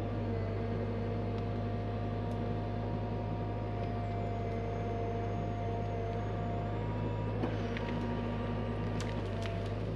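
Hyundai HX85A excavator running steadily under work, its engine's low hum joined by a steady whine from the hydraulics. A few sharp knocks come near the end.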